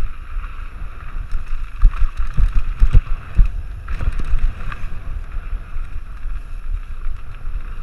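Wind buffeting the microphone on a fast mountain-bike descent, over the rumble and rattle of the bike on a rough dirt trail, with several heavier knocks from bumps around two to four seconds in.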